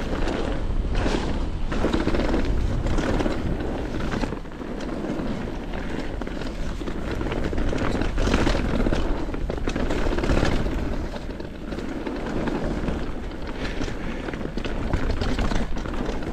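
Downhill mountain bike rolling fast down a rough trail, heard from a camera on the rider: steady wind buffeting on the microphone with the rumble of tyres and frequent rattles and knocks from the bike over bumps.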